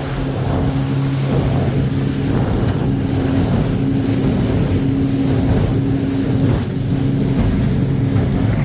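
Motorboat engine running steadily at cruising speed, a constant low hum over a haze of wind and rushing water.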